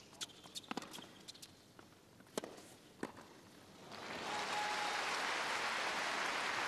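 Tennis on a hard court: a few sharp hits of racquet on ball, then about four seconds in the crowd breaks into steady applause as the point ends.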